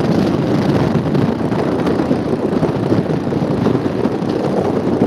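Steady wind rush buffeting the microphone while moving along a road, with vehicle road noise underneath.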